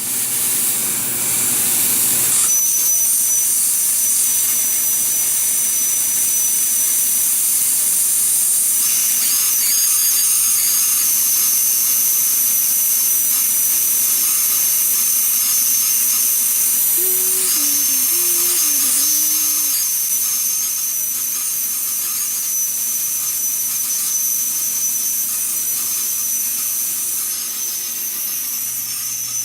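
Plasma cutter torch cutting metal: a loud, steady hiss with a thin high whine over it, dropping a little in level about two-thirds of the way through.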